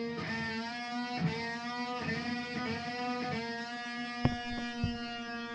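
Electric guitar playing long held notes, some sliding up and down in pitch. Two sharp knocks come about four seconds in.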